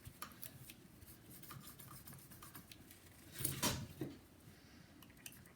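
Faint rubbing and light clicks of a paper towel wiping old thermal paste off a laptop heat sink, with one louder short scrape about three and a half seconds in.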